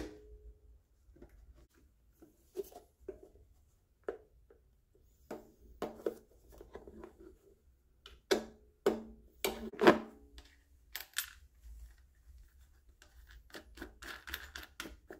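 Metal and plastic parts of a Honda EZ2500 generator being handled and fitted by hand: scattered clicks, knocks and rattles, some with a short ring, in small clusters, the loudest knock about ten seconds in.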